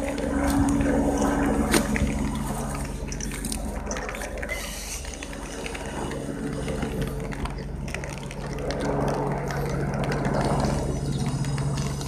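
Stationary electric train, the Meitetsu 3100-series set 3123F, humming with its underfloor auxiliary equipment running. Several low tones hold steady in pitch, over a noisy hiss with scattered clicks and rattles, and the hum swells a little near the start and again near the end.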